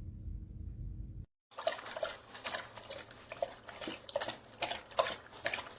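A dog lapping water from a stainless steel water fountain, about three laps a second. This starts after a low hum cuts off abruptly just over a second in.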